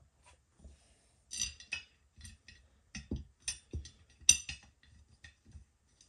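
Light metallic clinks and taps of beadlock ring bolts and washers being handled and started by hand into a beadlock wheel's ring. A scattered run of small clicks, the sharpest about four seconds in.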